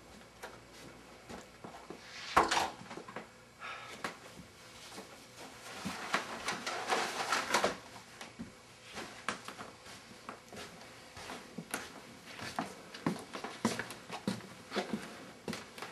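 Indoor handling sounds: a door shutting with a loud knock about two seconds in, then a few seconds of rustling as a bag is handled, with scattered small knocks and clicks.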